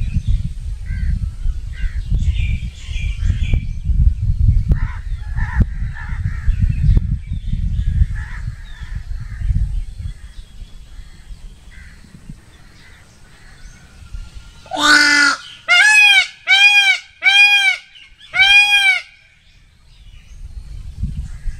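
Peacock (Indian peafowl) giving a loud series of five honking calls in the second half, one longer call and then four short ones about a second apart. Before it, a low rumbling noise with faint chirps of small birds.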